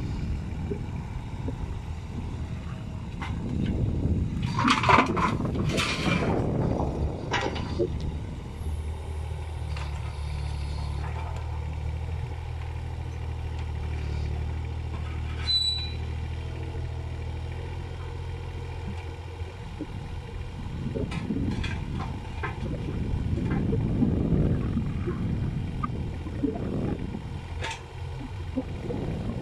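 Kubota mini excavator's diesel engine running with a steady low hum, strongest through the middle stretch as the arm works. A cluster of sharp knocks and clatter comes a few seconds in, with single knocks later.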